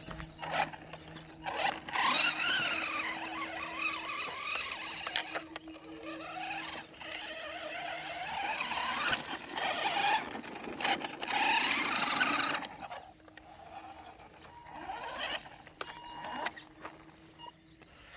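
Maverick Phantom XT electric RC car's motor whining as it drives, its pitch rising and falling with the throttle over a rushing noise. This runs from about two seconds in until a little past the middle, then it goes quieter.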